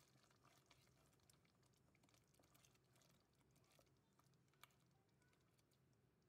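Near silence, with faint scattered ticks and one slightly louder click about four and a half seconds in.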